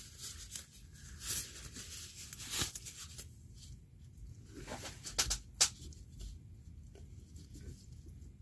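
Gloved hands working at the opened plastic macerator housing and filter basket of a Saniflo Sanicompact toilet: irregular rustling with scattered plastic clicks and a few louder taps, as wadded rag debris is pulled at inside it.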